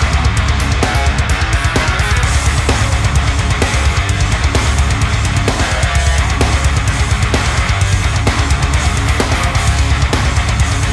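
Loud background heavy metal music with distorted guitar and fast, driving drums.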